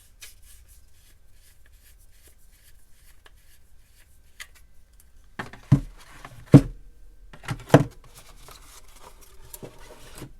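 Hands handling items on a hard surface: light rustling, then four heavy knocks in the middle, two close together near the end of them, as things are set down and picked up.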